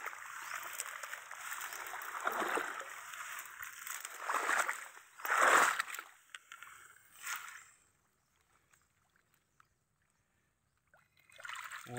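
Shallow swamp water sloshing and splashing as a folding mesh fish trap is hauled up through grass and water, in several louder surges during the first six seconds or so.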